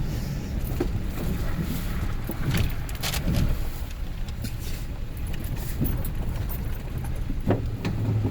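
Pickup truck driving, heard from inside the cab: a steady low engine and road rumble with a few short knocks and rattles.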